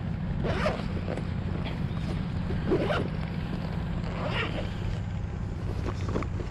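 Zipper of a fabric shoulder bag being pulled open in several short pulls.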